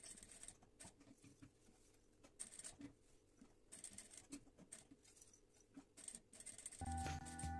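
Faint, irregular clicks and rustles of hands handling zipper tape at a sewing machine, close to silence. Background music comes back near the end.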